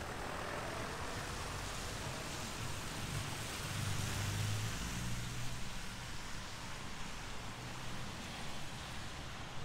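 Steady hiss of rain and wet pavement, with a vehicle passing on the wet street; it grows louder about four to five seconds in, then fades.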